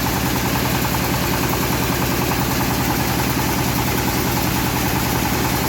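Engine of a home-built bandsaw mill running steadily at constant speed, with a fast, even low beat.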